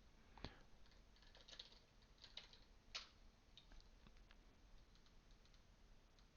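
Faint computer keyboard typing and mouse clicks: scattered, irregular taps over near silence.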